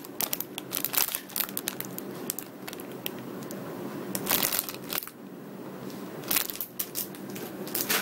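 Clear plastic bag of rubber loom bands crinkling as it is handled and squeezed, in irregular crackly bursts that ease off for about a second past the middle.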